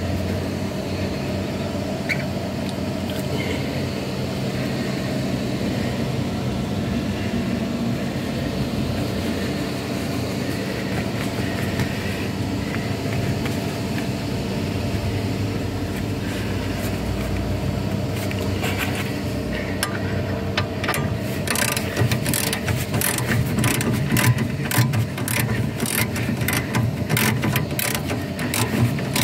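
A steady mechanical hum with several fixed pitches runs throughout, like an engine or motor running. About twenty seconds in, a quick, irregular run of sharp metallic clicks and clinks starts over it.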